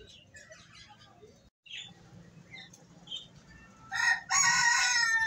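A rooster crows once about four seconds in, a loud call whose long final note falls in pitch.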